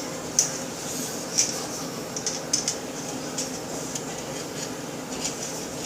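Metal parts of a Smith & Wesson FPC carbine clicking and clinking lightly as the recoil spring assembly is pressed in and the pivot-pin holes are lined up during reassembly: a handful of sharp, irregular clicks over a low steady hum.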